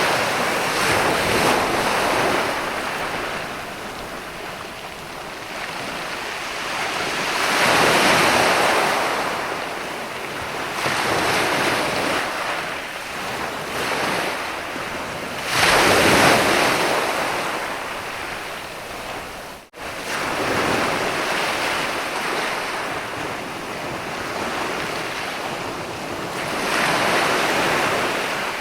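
Ocean waves breaking and washing up a sandy beach. A wave surges in about every eight to ten seconds, each swelling and then easing back into a steady hiss.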